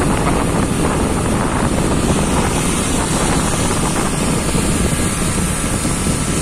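Wind buffeting the phone's microphone on a moving motorcycle, a loud, steady rush with the motorcycle and road noise underneath.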